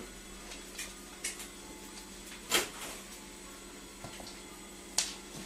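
A kitten and a dog play-fighting on a laminate floor: a few scattered scuffs and taps, the loudest about two and a half seconds in and another near the end, over a faint steady hum.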